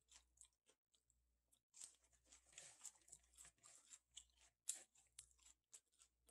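Faint, soft crackling and wet rustling of blanched, squeezed-dry chwinamul leaves being shaken loose and separated by hand, busiest through the middle, with one sharper crackle near the end.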